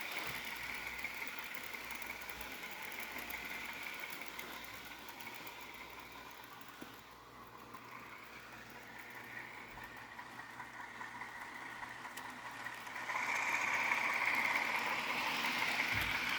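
Diesel engine sound from an HO scale Rapido RSC-14's DCC sound decoder, played through the model's small onboard speaker as it pulls its train. The steady engine drone fades as the model moves away, then grows louder again about thirteen seconds in as it comes back near.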